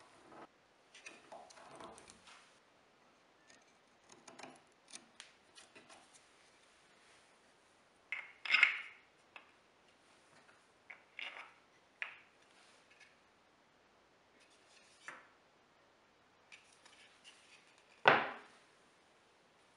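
Plywood parts and small tools being handled on a wooden workbench: scattered light knocks, clicks and rubs, with two louder knocks, one a bit under halfway and one near the end.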